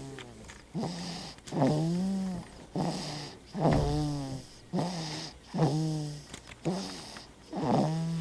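A baby snoring in a steady rhythm: a short snore followed by a longer one, the pair repeating about every two seconds, each snore with a clear pitch.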